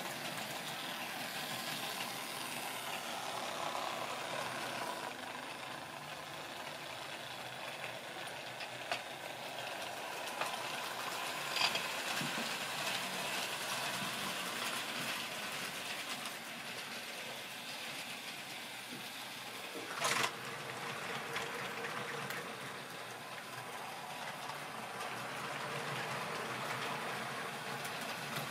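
Model railway train running along the track: a steady whirring rattle of the locomotive's motor and wheels on the rails, with a few sharp clicks, the loudest about twenty seconds in.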